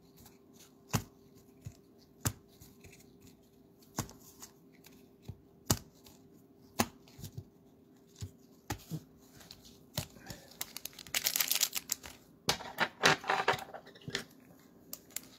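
Cello packs of basketball cards being handled: scattered light taps and clicks, then about ten seconds in a plastic pack wrapper is ripped open with a crinkling tear, and again a moment later.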